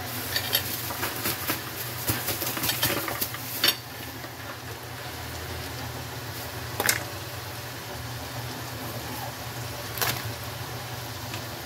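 Crabs sizzling and crackling in a wok of hot soy-sauce glaze, with sharp knocks of crab shell against the pan about four, seven and ten seconds in. A steady low hum runs underneath.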